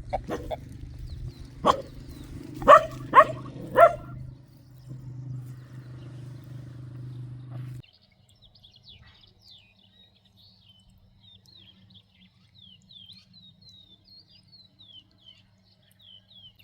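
Four short, loud calls from an animal, about a second apart, in the first four seconds. After a sudden cut, small birds chirp softly and steadily.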